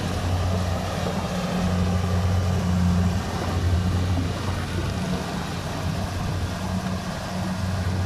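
Tracked rice combine harvester running while cutting and threshing a standing rice crop: a steady low engine hum over an even wash of machinery noise.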